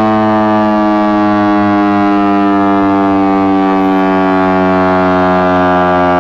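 Outdoor warning siren sounding a loud, steady tone that slowly sags in pitch.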